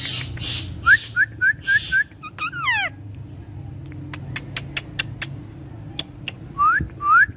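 Pet parrot whistling: a quick run of five short rising whistles, then a falling whistle, with a string of sharp clicks in the middle and two more rising whistles near the end.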